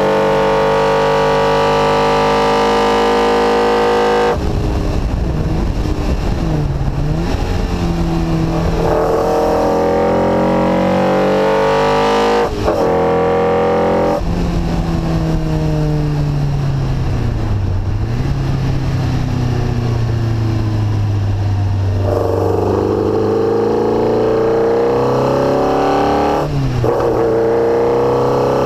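NSU TT's air-cooled four-cylinder engine breathing through Weber carburettors at racing speed, its hammering intake noise loud and close. The revs climb and drop again at several quick gear changes, with a longer spell of falling revs in the middle before it pulls up again.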